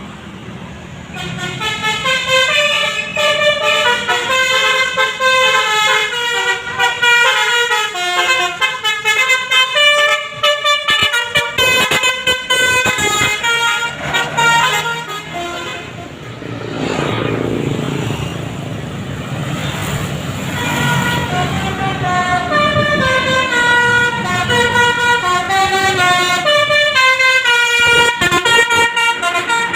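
Multi-tone 'telolet basuri' musical horn of an Indonesian inter-city bus playing a long tune of quick stepped notes, starting about a second in. The tune breaks off for a few seconds around the middle, where a rush of lower noise takes over, then it starts again.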